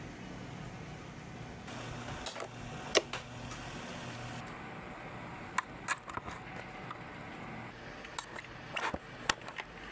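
Scattered sharp clicks and taps from handling guitar and effects-pedal gear, the loudest about three seconds in, over a low steady hum.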